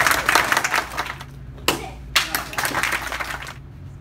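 A small group of onlookers clapping in two rounds: the first dies away about a second in, and the second starts sharply near the two-second mark and fades before the end.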